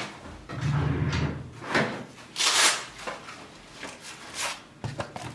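Handling noises as a screwdriver bit kit is fetched: several short scraping and rustling sounds, the loudest a swish about two and a half seconds in.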